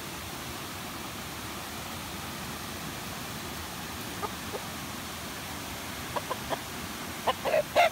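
Domestic rooster clucking in short calls: a couple about halfway through, then a quick run of louder ones near the end, over a steady hiss of running river water.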